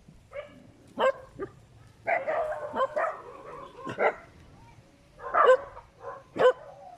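Several dogs barking, some of them dogs shut inside a house: sharp single barks with a denser run of overlapping barks about two seconds in.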